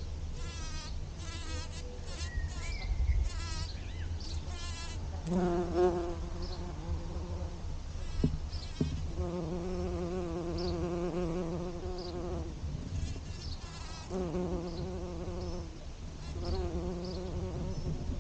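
A bee buzzing in flight, a low hum with a wavering pitch that comes and goes in several bouts.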